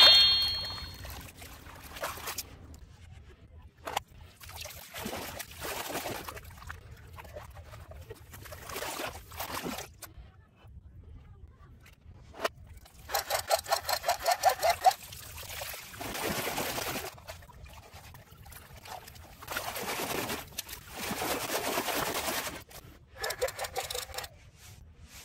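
Muddy water splashing and sloshing in irregular bursts as a toy rifle is rinsed in a plastic basket, with a louder run of quick splashes about halfway through; the sound is played in reverse.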